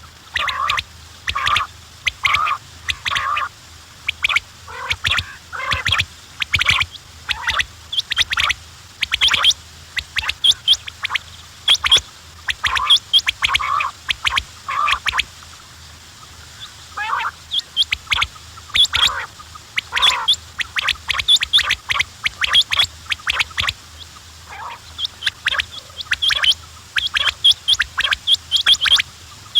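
Quails calling: many short, sharp calls in quick runs, with a couple of brief lulls.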